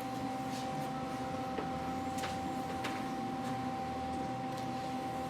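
Steady mechanical hum with a constant high whine, with a few faint light clicks and taps over it.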